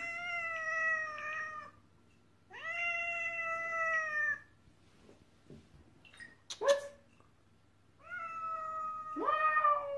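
Black-and-white tuxedo cat meowing repeatedly: four long, drawn-out meows of one to two seconds each, fairly level in pitch, with one short meow in between.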